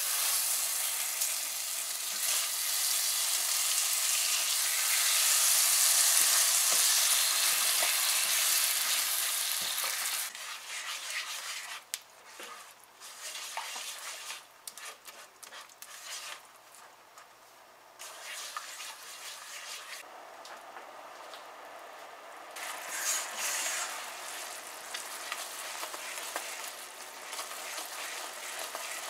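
Margarine and brown sugar sizzling in a nonstick pan as they melt into a glaze over medium-low heat, stirred with a silicone spatula. The sizzle is loudest for the first ten seconds, then becomes softer and patchier, picking up again briefly about 23 seconds in.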